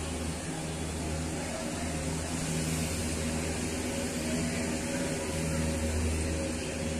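A steady low machine hum under a constant hiss.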